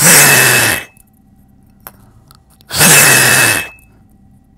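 Two hard blows of breath, each about a second long, through the stem of a small funnel holding a table tennis ball, each with a faint steady whistle. A single light click falls between the two blows.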